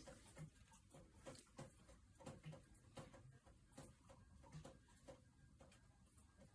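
Near silence: faint room tone with scattered small clicks.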